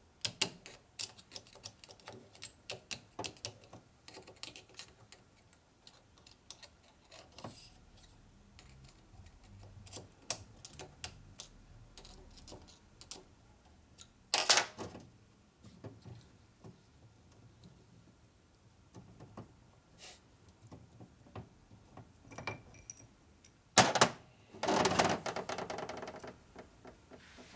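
Steel transmission gears and shaft of a 1942 Harley-Davidson WLA 45 clicking and clinking against each other as they are handled and fitted together. There is a short clatter about halfway through and a louder, longer metallic rattle about three seconds before the end.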